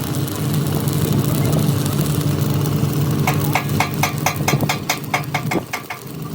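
An engine running steadily. Over it, about three seconds in, comes a quick, even run of about a dozen ringing metal strikes, roughly five a second, like hammer blows on steel. The engine hum drops away near the end.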